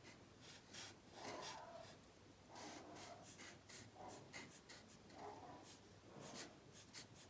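Felt-tip markers scratching on paper in many short, quick strokes, faint.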